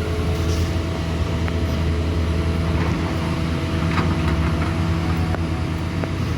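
A vehicle engine running steadily at an even speed, a deep continuous hum.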